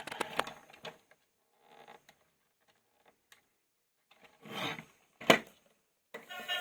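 Handling noises: scraping and rustling, with a few light clicks and one sharp knock about five seconds in. Music starts just before the end.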